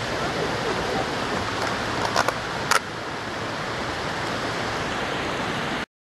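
Steady rushing of river water at a river crossing, with a few sharp clicks a little over two seconds in; the sound cuts off abruptly near the end.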